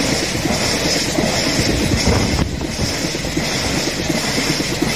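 Train of Taki 1000 gasoline tank wagons rolling past close by: a steady rumble of wheels on rails with a fast clatter over the joints, and a high hiss that pulses about twice a second.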